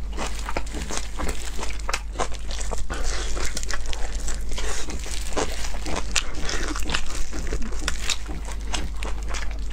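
Close-miked eating: crispy, sauce-glazed fried meat is torn apart by gloved hands, then bitten and chewed. The result is dense crunching and crackling, many sharp clicks close together.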